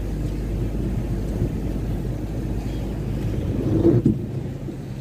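Steady low rumble of a car's engine and tyres on a wet road, heard from inside the cabin. About four seconds in, a windshield wiper sweeps across the glass with a brief squeak.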